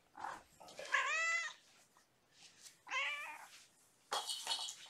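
A cat meowing twice: a long meow that rises and falls about a second in, and a shorter one about three seconds in. A brief high-pitched sound follows near the end.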